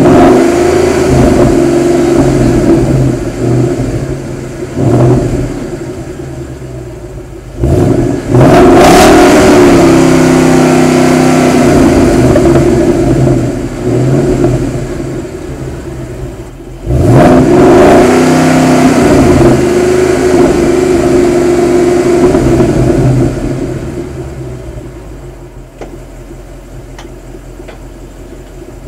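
2013 Ford Mustang GT's 5.0-litre V8 being revved: quick blips near the start, then the revs are twice pushed up and held high for several seconds. It drops back to idle near the end.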